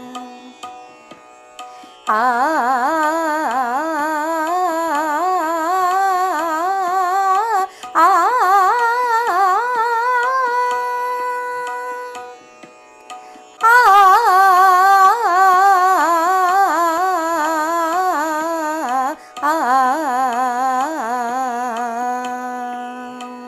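Indian classical practice music: a fast melodic run through an alankaar pattern in Raag Bhairav, played as four quick phrases with short breaks between them, opening and closing on a held note.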